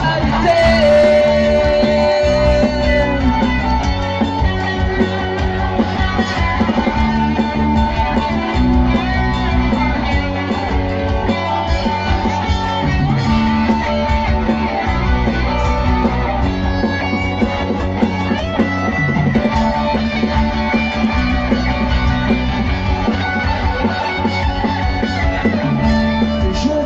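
Live rock band playing, with electric guitars and drums.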